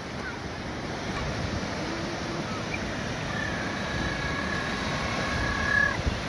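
Surf washing and breaking in the shallows, a steady rushing noise that swells a little louder toward the end. A faint long held tone sounds over it from about three to six seconds in.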